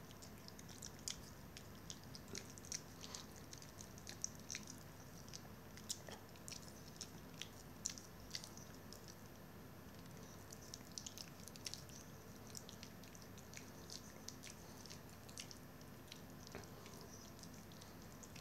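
Pomeranian licking and nibbling at its own paw: faint, irregular wet clicks and smacks, with a short pause about halfway through.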